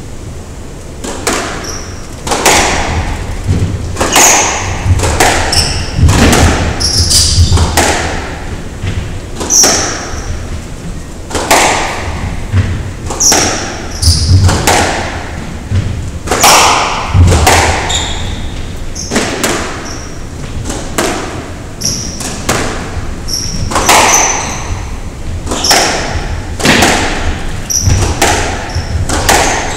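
A squash rally: the ball cracking off the rackets and thudding against the court walls about once a second, each hit ringing in the enclosed court, with short high squeaks from the players' shoes on the wooden floor.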